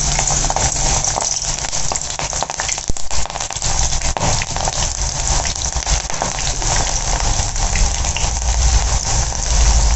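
Batter-coated banana flower pakodas deep-frying in hot oil, a steady crackling sizzle as the pieces go in and bubble. A low rumble comes in near the end.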